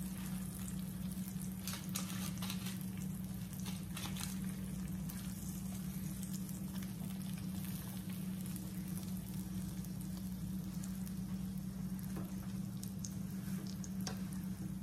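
Butter and olive oil sizzling under a grilled cheese sandwich frying in a nonstick skillet, with a few scattered clicks. A steady low hum runs underneath.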